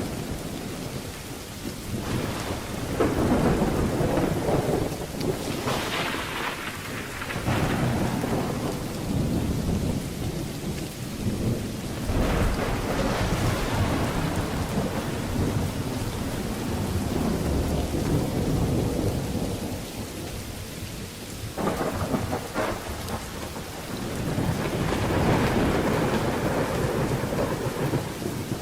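Steady rain falling, with thunder rumbling through it in several long rolls that swell and fade. There is a sharp crack of thunder a little past the middle.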